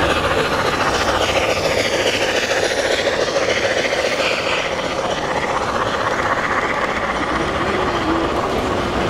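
LGB garden-scale model steam locomotive and carriages running along the track, heard over the steady din of a busy exhibition hall.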